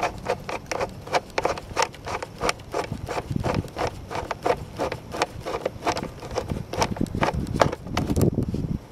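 Knurled metal nut of a scooter speedometer cable being turned off its threaded fitting by hand: a rapid run of light clicks and scrapes, about three a second, with some rubbing, stopping suddenly near the end.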